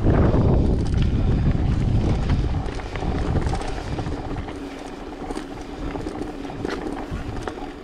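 Mountain bike rolling fast over a gravel dirt track: wind buffeting the camera microphone along with tyre crunch and frame rattle over bumps. The wind noise eases about halfway through, leaving tyre noise, small clicks and a steady hum.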